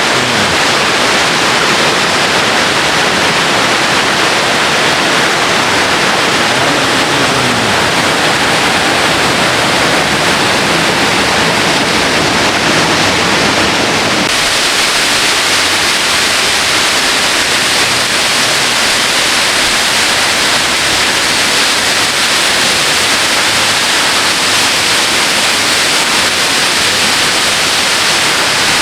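Loud, steady rushing roar of a tall waterfall, about 53 metres of falling water, its sound changing abruptly about halfway through.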